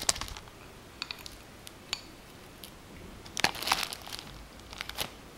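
Thin plastic bag crinkling while cream is spooned into it with a spatula, with light clicks against the glass holding the bag, in a few short bursts.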